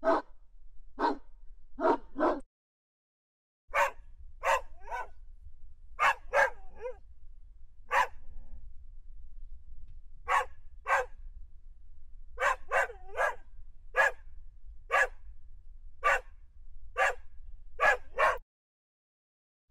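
Dog barking in sharp single and double barks, about one a second, with two short breaks of dead silence where the recording cuts out.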